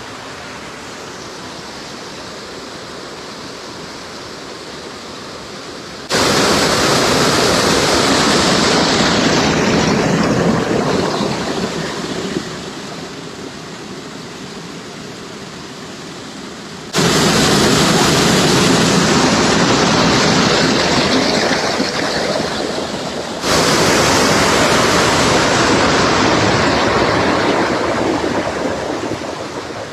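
Water of a small hill stream running, a steady rushing hiss that jumps suddenly louder three times and slowly fades back after each jump.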